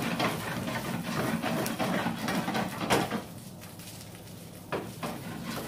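Spaghetti in pesto sauce sizzling in a hot frying pan while it is stirred and tossed with a wooden spatula: dense scraping and clatter of the spatula against the pan, a sharp knock about three seconds in, then quieter, with another knock near the end.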